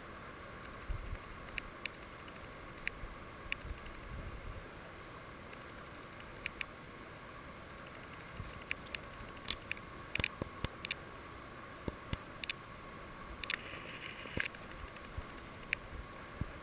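Faint, irregular small drips and light splashes of water from paddle strokes, heard as scattered sharp ticks over a steady hiss.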